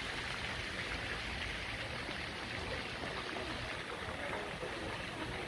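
Steady rush of the Neretva river's flowing water, with faint distant voices.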